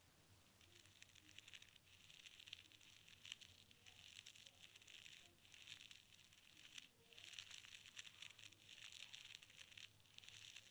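Close-up scratching and rustling of ear-cleaning tools working at the ear, faint and crackly, in long stretches broken by a few brief pauses.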